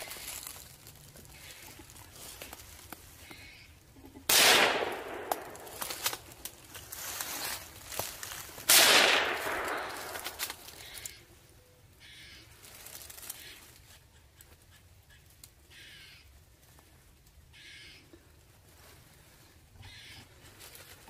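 Two gunshots about four and a half seconds apart, each with a long echo fading through the woods. Crows caw faintly now and then.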